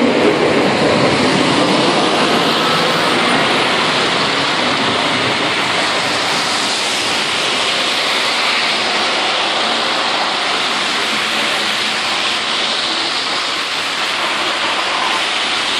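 Scania plow truck's blade pushing and throwing wet snow and slush, with tyres on the slushy road: a loud, steady rushing hiss, fuller at first and easing slowly as the truck moves off.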